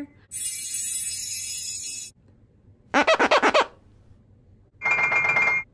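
Three short sound effects added in editing with near silence between them: first a bright, high shimmer lasting nearly two seconds, then a quick stuttering run of about eight pulses, then a brief buzzy tone near the end.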